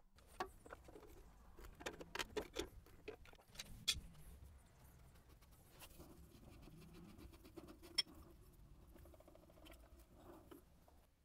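Faint clicks, taps and scraping of hands undoing the screw ring and pulling down the bowl of a Kubota M5700 tractor's fuel filter. The clicks cluster in the first few seconds, with one more sharp click about two-thirds of the way through.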